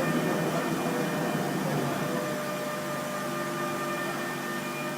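MultiCam 5000 Series CNC router running, a steady machine hum with a few steady whining tones that slowly fade a little, as the gantry drives to its park position in the middle of the table.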